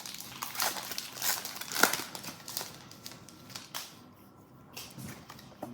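Foil wrapper of a Pokémon card booster pack crinkling and tearing as the pack is opened, in a run of short rustles that thin out and grow quieter about three seconds in.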